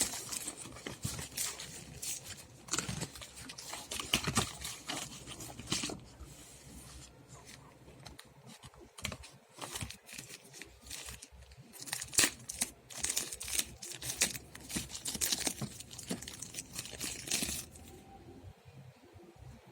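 Packaging being handled and opened by hand: crinkling and tearing with many small clicks and taps, busy at first, thinner for a few seconds, busy again, then dying down near the end.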